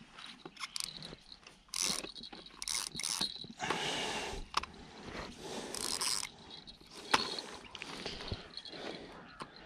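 Spinning fishing reel being handled and cranked in short spells, its gears whirring and clicking, with sharp clicks in between.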